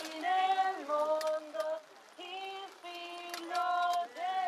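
Voices singing a slow hymn in long held notes that step up and down in pitch, with short breaks between phrases.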